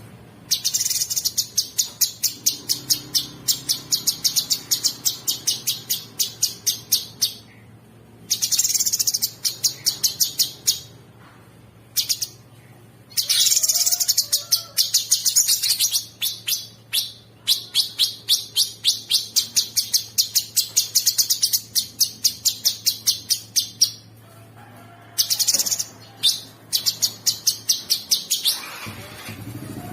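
A cucak sungkok songbird singing in long runs of rapid, harsh repeated high notes, about four to five a second. The phrases last several seconds with brief pauses between them: the rough, drill-like 'ngebren' chattering song.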